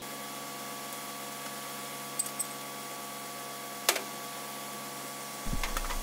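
Concrete mixer truck running with a steady hum, with a couple of light clicks; a deeper rumble joins near the end.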